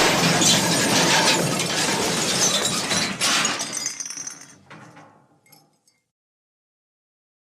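Stock sound effect of glass breaking amid a long clattering crash, which dies away into scattered tinkles of falling shards and stops about six seconds in.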